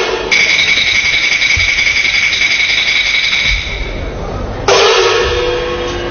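Chinese opera percussion: a metal stroke just after the start rings on with a high, steady tone and fades over about three and a half seconds. Another stroke near the end rings at a lower pitch, in the gong-and-cymbal accompaniment of a Huangmei opera stage scene.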